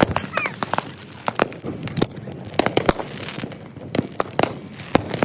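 Consumer fireworks going off in a rapid, irregular string of sharp bangs and pops, sped up to three times normal speed.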